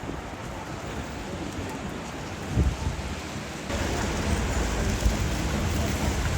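Outdoor city street noise: a steady hiss of traffic and wind. It steps up abruptly and gets louder a little over halfway through.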